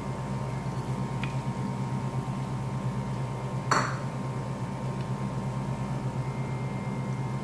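Sliced onions frying in oil in a nonstick pan over a steady low hum, with a small tick about a second in and one sharp clink a little under four seconds in as whole spices are added to the pan.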